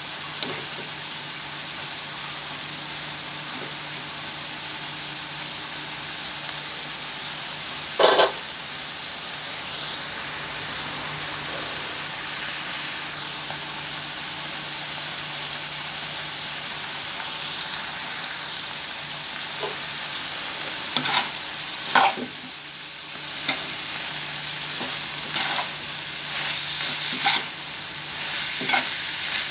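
Pork and liver with green chilies sizzling steadily in a frying pan. A metal spatula scrapes and knocks against the pan once about eight seconds in, then repeatedly during the last third as the meat is stirred.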